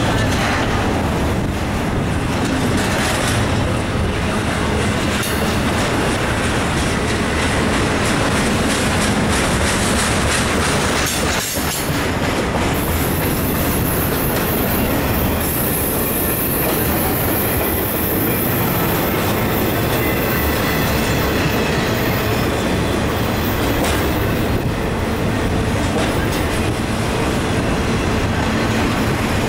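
Intermodal freight train's double-stack container well cars and trailer flatcars rolling past at close range: steady noise of steel wheels running on the rails.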